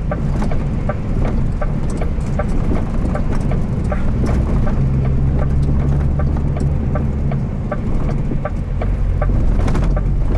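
DAF truck's diesel engine running, heard from inside the cab, with a steady rapid ticking about three times a second.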